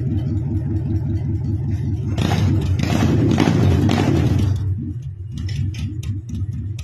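Custom chopper motorcycle engine idling with a steady pulsing beat. It is revved for about two and a half seconds from about two seconds in, then drops back to idle.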